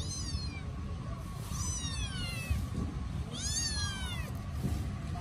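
Hungry kittens meowing: three high-pitched cries, each under a second long and falling in pitch, the last one rising and then falling.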